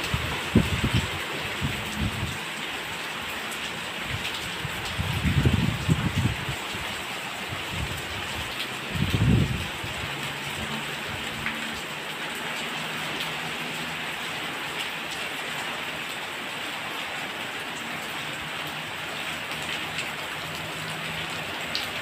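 Heavy rain falling steadily on wet ground and puddles, with a few brief low rumbles in the first ten seconds.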